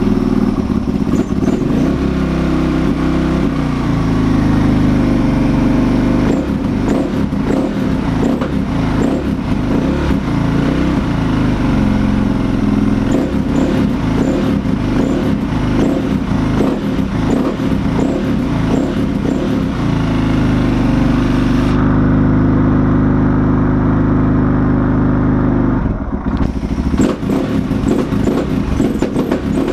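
KTM 525 single-cylinder four-stroke engine running just after starting, its revs rising from about 1,400 rpm to over 3,000 rpm and held there. The owner calls it a bit lumpy since its rebuild.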